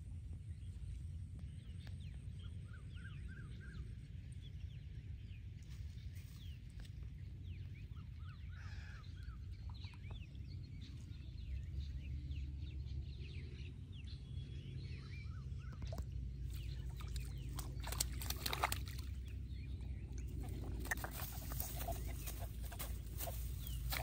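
Rural outdoor ambience with faint fowl-like calls over a steady low rumble. In the second half come rustling and clicking handling noises, loudest in the last few seconds as a caught fish is handled in the grass.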